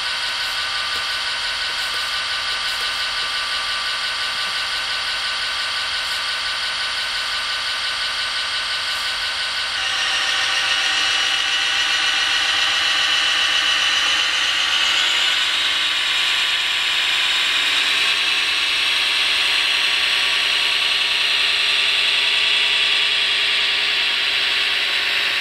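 Hydraulic RC model Caterpillar 14M motor grader's motors and gearing whining steadily as it works. The whine gets louder and higher in pitch about ten seconds in and climbs a little more a few seconds later.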